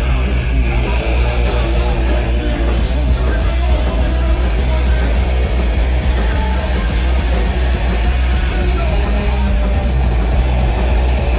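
Live punk rock band playing loud through a festival PA: electric guitar, drums and vocals, with a heavy, booming low end.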